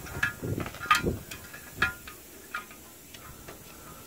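Several metal clanks and knocks with a short ring, the loudest about a second in and again near two seconds, then quieter: steel trailer brake parts and tools being handled at a drum-brake axle just stripped of its shoes.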